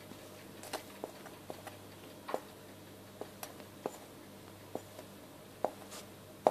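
A low steady hum with faint, irregular small ticks and clicks, about two a second, a few slightly louder near the end.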